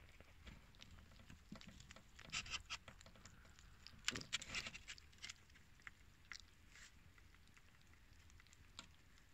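Kittens eating small pieces of meat: faint, quick, moist clicks and smacks of chewing, coming in clusters about two seconds in and again around four to five seconds in, with a few single ticks after.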